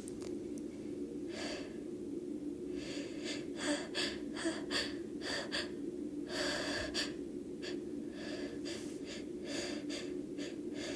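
A woman's short gasping breaths and sniffs, several in a row: the build-up to a sneeze that has not yet come. A faint steady hum sits underneath.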